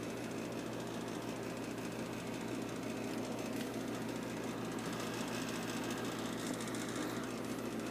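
A steady low mechanical hum made of several constant tones, with no change in level.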